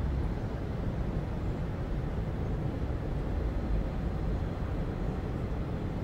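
City ambience: a steady, even low rumble of traffic with no single event standing out.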